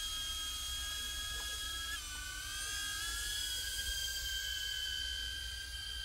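DJI Avata drone's motors and propellers give a steady high whine. About two seconds in the pitch dips, then glides back up as the drone speeds up and climbs.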